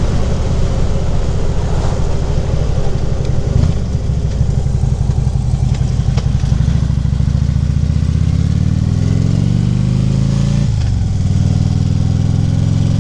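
Harley-Davidson V-twin motorcycle engine running under way. Its pitch climbs steadily as the bike accelerates, dips sharply at a gear change about eleven seconds in, then settles to a steady note.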